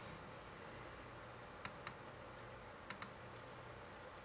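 Clicks on a laptop's pointing-device buttons: two quick double clicks, one about a second and a half in and another about a second later, over a faint steady room hum.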